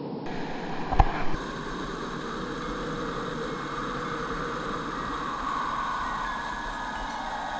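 Steady rush of flowing water, with a single sharp knock about a second in.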